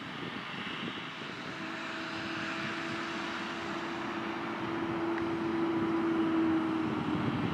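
Silage-making tractors and machinery running: a steady engine drone with a hum that swells as a tractor drives past close by.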